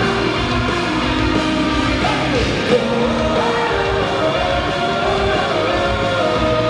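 Live rock band playing through a concert PA: electric guitars, bass and drums, with a singing voice over them.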